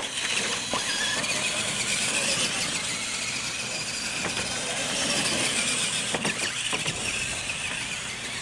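Radio-controlled monster trucks racing, their electric motors and gearing giving a steady high whine.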